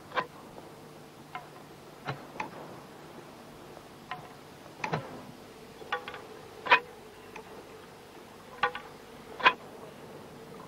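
About a dozen short, sharp ticks and light plops at uneven intervals: carp bait (boilies) being thrown out and landing on the water during baiting.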